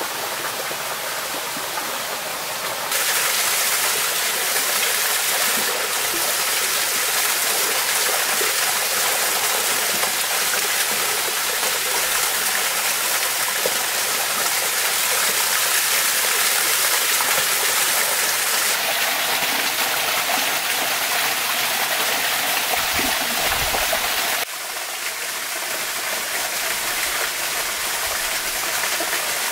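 Steady rushing of a shallow stream and a small waterfall. It jumps suddenly louder about three seconds in and drops back softer near the end.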